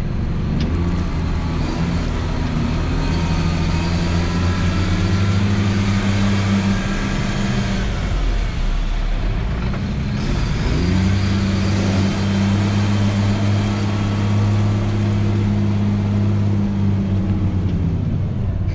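GMC C8500 tandem-axle dump truck's engine pulling steadily as the truck works through deep, soft mud. The engine note sags and fades about eight seconds in, picks back up about three seconds later, and falls away near the end.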